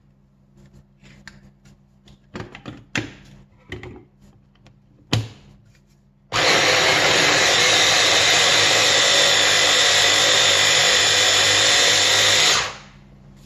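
Small hand blender pureeing raw prawns into a mousse: after a few light knocks and taps, the motor starts suddenly about six seconds in, runs steadily at full speed for about six seconds, then stops.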